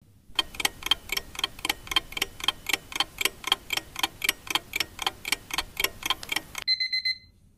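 Clock-ticking sound effect: fast, even ticks, about five a second, stopping about a second before the end. A short, faint high tone follows and fades out.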